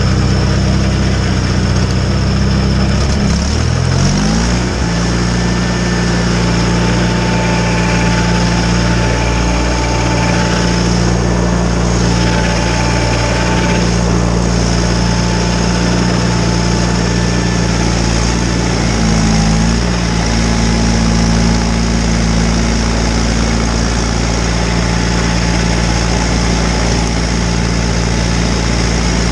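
John Deere 318 garden tractor's two-cylinder Onan engine running steadily while driving a Model 49 snowblower. The engine speeds up about four seconds in, then holds a steady pitch, with a small change in pitch about two-thirds of the way through.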